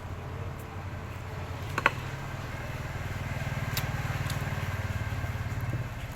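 An engine running steadily with an even low pulse, growing louder through the middle and easing near the end. A single sharp click comes about two seconds in.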